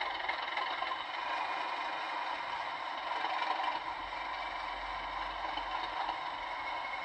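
Sound-fitted OO gauge Class 37 model diesel locomotive standing still with its DCC sound decoder playing a steady engine idle through the model's small speaker.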